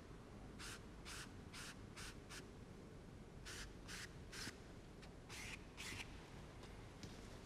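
Wide flat paintbrush swept across watercolour paper in short strokes, a soft brushing hiss with each, about ten strokes in three quick runs.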